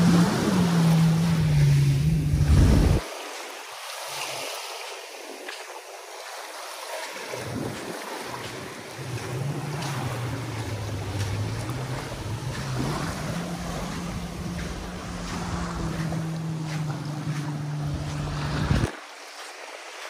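Sea waves washing on a beach under wind, with wind buffeting the microphone loudly for the first three seconds. From about nine seconds in, a steady low engine hum of a boat joins, drifting slowly in pitch, and cuts off suddenly near the end.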